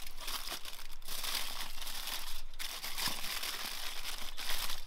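Aluminium foil crinkling and crumpling as it is folded and wrapped by hand, with a couple of brief pauses.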